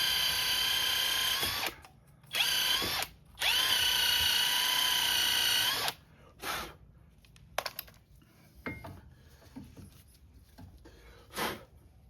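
A power tool's electric motor whirring at a steady pitch in three runs. The first ends about a second and a half in, a short one comes at about two and a half seconds, and a longer one stops around six seconds. A few short clicks and knocks of tools being handled follow.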